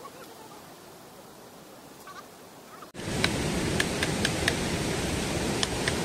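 Quiet outdoor background with faint distant voices, then, from about three seconds in, the steady rush of a nearby stream with sharp, irregular clicks of a knife cutting into a wooden stick.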